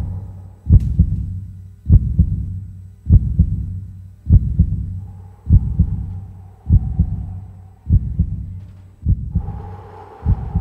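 Heartbeat sound effect: slow paired low thumps, lub-dub, about once every 1.2 seconds. A held tone comes in about halfway through and grows louder near the end.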